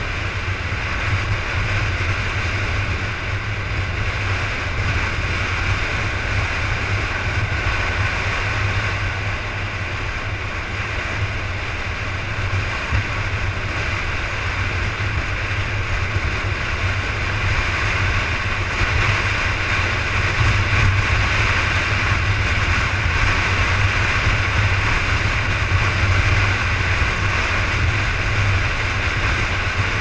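Steady engine rumble and tyre-on-road noise of a vehicle cruising at speed on an expressway, growing slightly louder about two-thirds of the way through.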